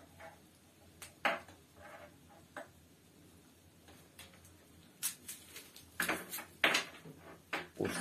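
Quiet hand-work at a table, peeling an onion and handling a knife and food: a few soft clicks and rustles, more of them in the second half.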